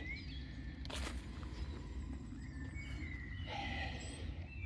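Outdoor background noise: a steady low rumble, with a sharp click about a second in and a few short, faint high-pitched chirps.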